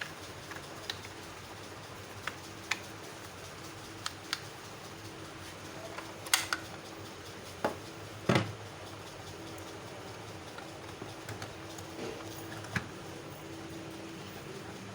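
Scattered light clicks and taps of small parts and tools being handled during microwave repair, about a dozen, with a louder knock a little past the middle. A faint steady hum runs underneath.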